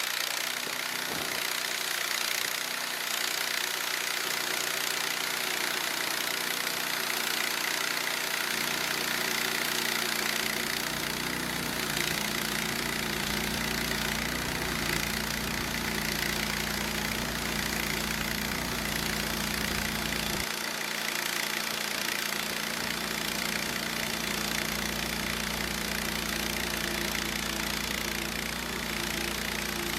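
Sawmill's gasoline engine running steadily, with the lowest part of the sound changing about 8 seconds in and again about 20 seconds in.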